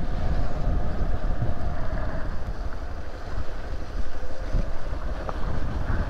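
Hero XPulse 200 single-cylinder motorcycle running as it is ridden along a rough, wet dirt road, mostly covered by wind buffeting the microphone.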